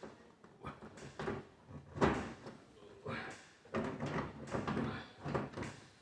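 Knocks, clunks and clatter from a clothes dryer's panels and parts being handled during disassembly, with the loudest knock about two seconds in.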